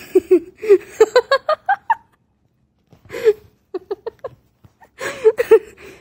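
A person laughing in quick bursts of short giggles; the first run climbs in pitch, and more laughter follows near the end.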